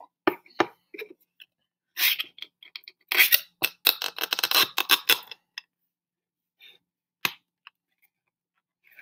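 Cardboard model-rocket parts scraping and rubbing in the hands, with scattered clicks, as the glued engine mount is worked into the cardboard body tube. The scraping is densest from about two to five seconds in.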